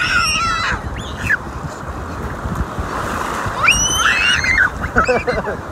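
Wind buffeting the microphone over the wash of shallow surf, with a few short high-pitched squeals at the start, near the middle and again about five seconds in.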